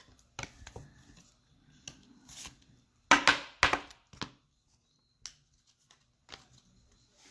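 Trading cards and their packaging being handled: scattered soft taps and rustles, with a louder crinkling burst about three seconds in.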